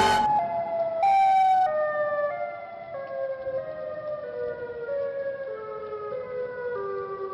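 Siren Head monster call sound effect: a siren-like wail made of short held tones that step downward in pitch one after another, loudest about a second in.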